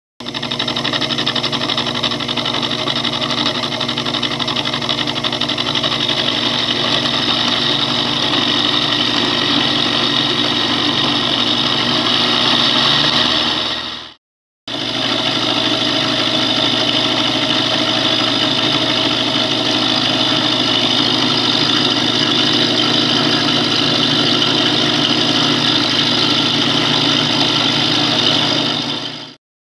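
Sherline mini mill running steadily, its carbide 30-degree angle cutter milling the side of a ground A2 tool-steel gage block, a steady motor whine over cutting noise. It drops out to silence for a moment about halfway, then resumes the same.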